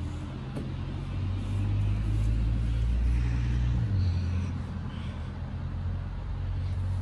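A low, steady engine hum, like a motor vehicle running nearby. It grows louder about a second and a half in and shifts in pitch about four seconds in.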